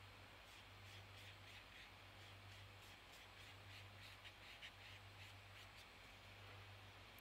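Near silence: a steady low hum, with faint soft strokes of a watercolour brush on paper.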